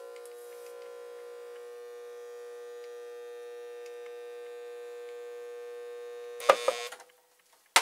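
Microwave oven transformer (MOT), rewired for low voltage and high current, buzzing with a steady mains hum under heavy load as it drives current through a short-circuiting nail until the nail glows. About six and a half seconds in there is a loud crackling burst as the nail burns through, the hum stops, and a sharp click follows near the end.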